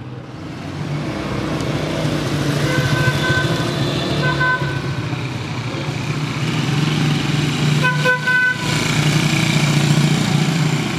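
Small motorcycle engines running as motorcycles ride past close by, growing louder near the end. A vehicle horn toots briefly three times, about three, four and a half and eight seconds in.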